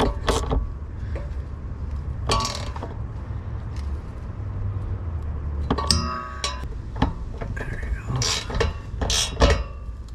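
Hand tools on metal under a car: a socket wrench on the shifter linkage bolts, with a few sharp metallic clinks and knocks, one of them ringing briefly about six seconds in. A steady low hum runs underneath.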